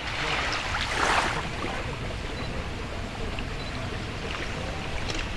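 Small waves lapping and washing up on a sandy beach, with a louder wash about a second in over a steady low rush of sea and breeze.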